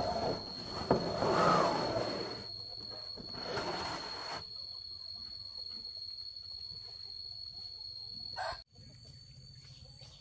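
Chickens squawking twice: a longer outburst in the first two seconds and a shorter one about four seconds in. A steady high-pitched whine runs underneath.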